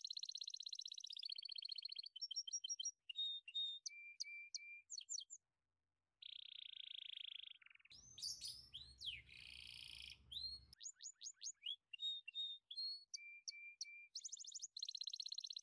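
Songbirds chirping and trilling: fast high trills and repeated short chirps, stopping dead for about a second around five seconds in. From about eight to eleven seconds a fuller burst of calls comes with a low rumble beneath it.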